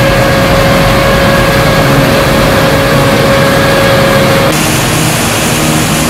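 Laverda AL Quattro Evo combine harvester running, its engine and machinery making a loud steady noise with a thin steady whine that stops about four and a half seconds in, where the sound shifts abruptly.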